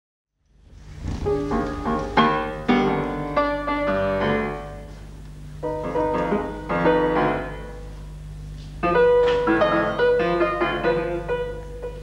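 Solo grand piano playing fast runs and clusters of notes in three bursts, each followed by a lingering decay, with a steady low hum underneath. The sound begins about half a second in.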